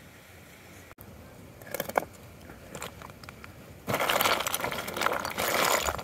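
Crunching and clinking of snow and ice, first a few scattered clicks, then from about four seconds in a loud, dense crunching.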